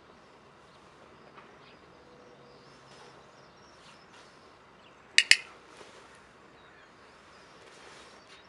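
A training clicker gives one sharp double click (press and release) about five seconds in, marking the rabbit's correct jump over the foot. Faint birdsong in the background.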